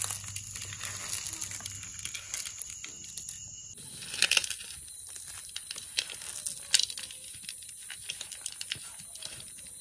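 Scattered small clicks and crinkling of things being handled, with a sharper clatter about four seconds in and another near seven seconds.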